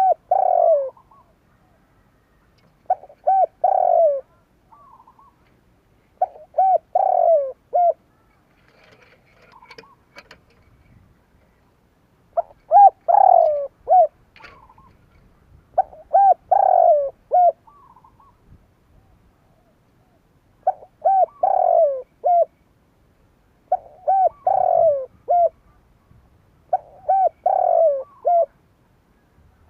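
Spotted dove singing: a short phrase of several coos, the loudest note falling in pitch, repeated every three to four seconds, eight phrases in all, with a longer pause near the middle.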